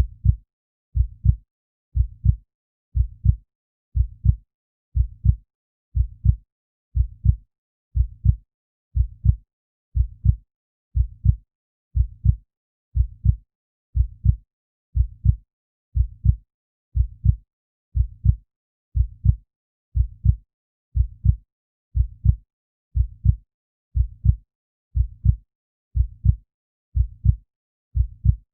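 Heartbeat sound effect: a steady, low double thump (lub-dub) about once a second, with silence between beats.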